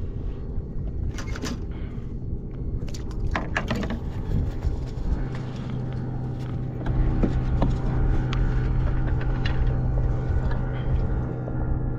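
Boat motor running steadily, growing louder about seven seconds in, with a few sharp knocks and clicks in the first few seconds.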